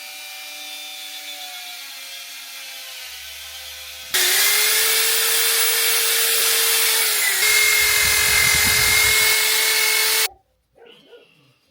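Corded electric buffing tool polishing the metal rocker covers of a Harley-Davidson Sportster engine. Its motor first runs steadily at a moderate level. About four seconds in it becomes much louder, with a strong hiss over a steady whine, and holds for about six seconds before cutting off suddenly.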